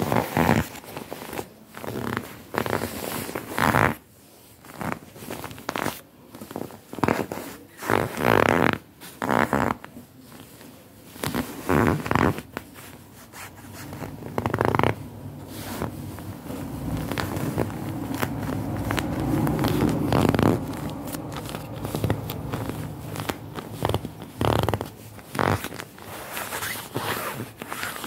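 Shiny quilted down puffer jacket with a plastic-like shell rustling and crinkling as a hand rubs and presses it. It comes as irregular swishes, with a longer continuous rub in the middle.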